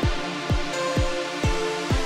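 Electronic music with a steady kick drum about twice a second under sustained synth notes.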